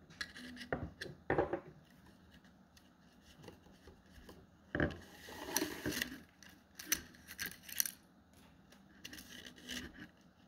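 Thin rattan strips scraping and rustling against one another and against a bamboo tube as a strand is inserted under the wraps and pulled through, with scattered light clicks and a longer scrape about five seconds in.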